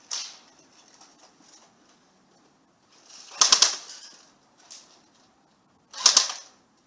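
Airsoft rifle firing two short full-auto bursts of rapid clicks, about three and a half seconds in and again about six seconds in.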